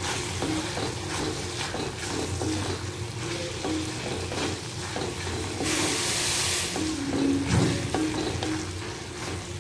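A wooden spatula stirs and scrapes cauliflower and masala around a metal kadai while the mixture sizzles on the heat. About six seconds in, a louder hiss lasts for about a second.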